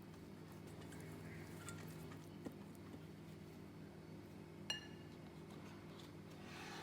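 Kitchenware being handled over a steady low hum: a couple of soft knocks, then one sharp ringing clink, like a utensil striking a dish, a little over halfway through.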